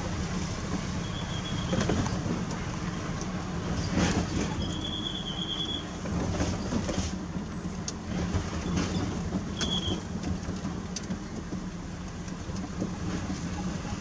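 Mitsubishi Fuso self-loader truck driving slowly, heard from inside the cab: steady diesel engine running with cab rattles and knocks over a rough road. A short high tone sounds three times, the middle one about a second long.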